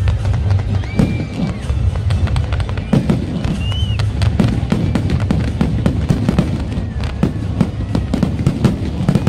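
Fireworks display: a dense, irregular run of bangs and crackling from aerial shells bursting overhead.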